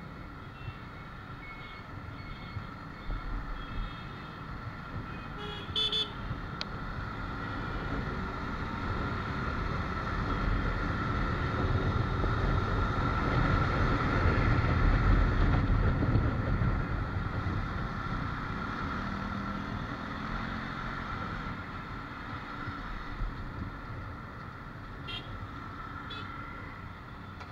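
Riding noise on a Suzuki Gixxer FI ABS single-cylinder motorcycle in city traffic. Engine and wind noise build as the bike speeds up to about 66 km/h around the middle, then ease off as it slows again, with short horn toots from the surrounding traffic.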